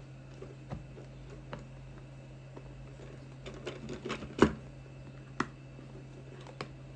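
Small clicks and knocks of a plastic speaker housing being handled and pressed together, with two sharper knocks about halfway through.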